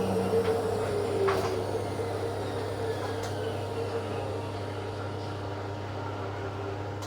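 Hotpoint 18680 Super Electronic washing machine spinning, a steady hum with a slightly falling tone that slowly gets quieter, and a couple of light knocks. The brushed motor has new brushes and runs smoothly.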